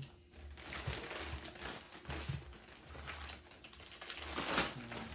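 Packaging crinkling and rustling as new shoes are handled and unwrapped from their box, loudest about four and a half seconds in.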